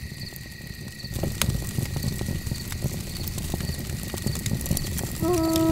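Night ambience: a low wind-like rumble that swells about a second in, with crackles from a campfire and faint crickets chirping about twice a second. About five seconds in, a long held horn note begins.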